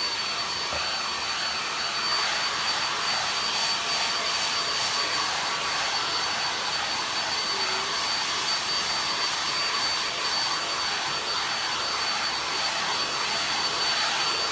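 Hair dryer running steadily: a constant rush of air with a thin, high, steady whine.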